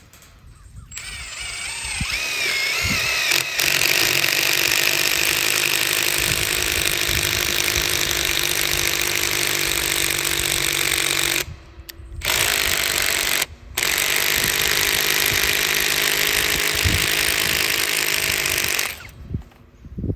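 A loud power tool runs steadily after winding up about a second in. It cuts out briefly twice midway and stops near the end.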